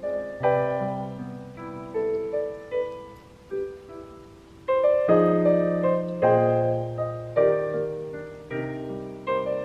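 Background piano music: a slow piece of struck chords and single notes, each dying away, with a quieter stretch in the middle and a louder chord about five seconds in.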